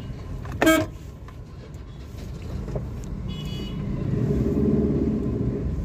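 Car engine and road rumble heard from inside a slowly moving car, with one short vehicle horn toot less than a second in. The rumble grows louder over the last two seconds.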